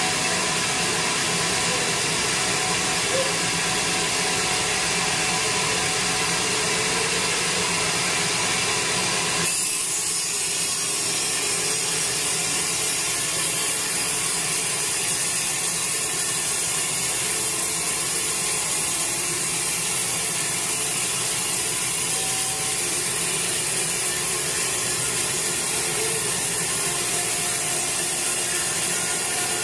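Bandsaw mill's blade cutting lengthwise through a large teak log, a steady loud rasping saw noise. About nine seconds in the sound abruptly loses some of its deeper body and carries on thinner.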